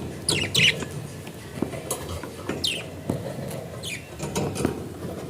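Budgerigar chirping: about five short high squeaks, each sliding down in pitch, some in quick pairs, mixed with light taps and clicks.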